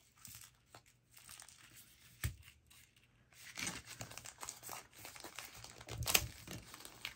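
A small package of nail embellishments being handled, its packaging crinkling and rustling unevenly, with two sharper taps about two and six seconds in.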